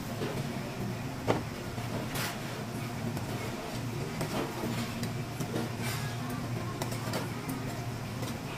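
Metal chopsticks clicking and scraping against a stainless steel bowl as food is stirred, with a sharper knock about a second in, over a steady low hum of restaurant background.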